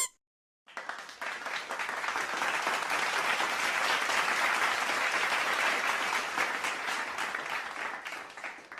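Crowd applause sound effect: many people clapping, starting about a second in, swelling to a steady peak and then tapering off near the end.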